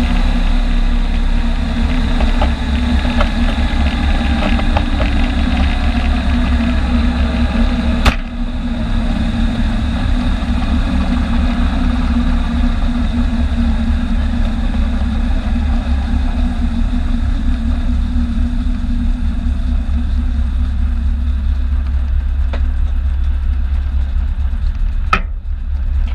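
Helicopter engine and rotor running on the deck after landing, heard from inside the cockpit: a loud, steady low drone with a stack of engine tones. A few tones fall in pitch in the first seconds, and there is a sharp click about eight seconds in.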